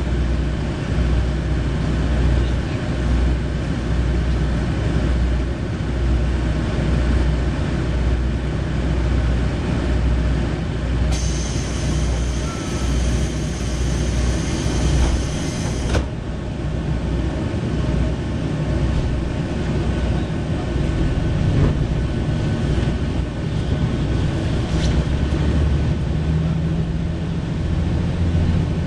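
Diesel engine of a KiHa 40 series railcar running under load as the train pulls away, a steady low drone whose pitch rises near the end. A high hiss comes in for about five seconds midway and cuts off suddenly.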